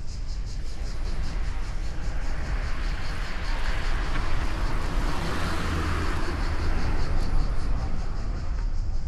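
A vehicle passing by, its noise swelling to a peak midway and then fading. Underneath runs a fast, even, high-pitched pulsing.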